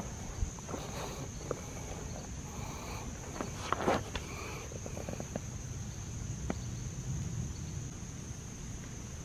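Steady, high-pitched insect chorus, with a few rustling footsteps in dry leaf litter, loudest about four seconds in.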